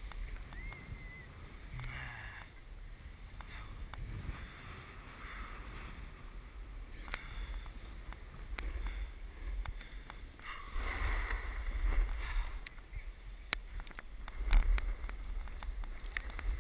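Snow hissing and scraping under a rider sliding down a groomed slope, louder for a few seconds about ten seconds in, over a steady rumble of wind on the microphone, with a few scattered clicks.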